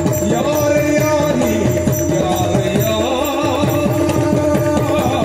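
Yakshagana accompaniment music: a steady drone under fast, continuous drumming, with a jingling rattle of small cymbals or bells.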